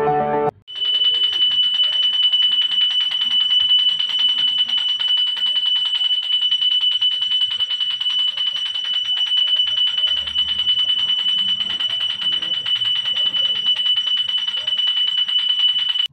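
Puja hand bell rung rapidly and without pause during the lamp offering: one high ringing tone with fast, even clapper strikes. It starts about half a second in and cuts off abruptly at the end.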